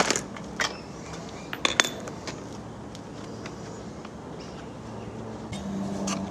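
Hand tools and small metal parts clinking and clicking against a Stihl MS 170 chainsaw, a few sharp clinks in the first two seconds and scattered ones after. Near the end a steady low hum begins.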